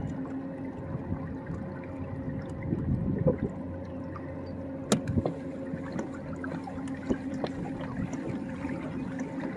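Water gurgling and sloshing against a kayak hull as it moves, over a faint steady hum, with one sharp knock about five seconds in.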